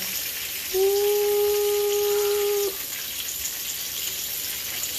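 Hot oil sizzling in a frying pan as battered chicken fried steaks are lifted out. About a second in, a steady held tone sounds over it for about two seconds and then cuts off.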